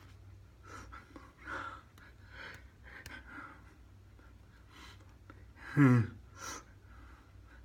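A person's breathing and breathy mouth sounds, with one short, loud vocal sound about six seconds in that drops steeply in pitch.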